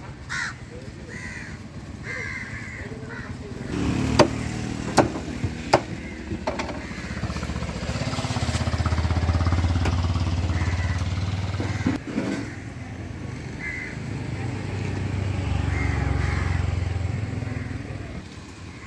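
Crows cawing now and then, with three sharp knife chops into fish on a wooden block a few seconds in and another later. Two motor vehicles pass on the street, each swelling and fading.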